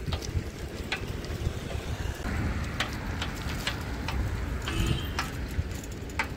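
Outdoor ambience: a steady low rumble with scattered sharp clicks, and a brief pitched sound about five seconds in.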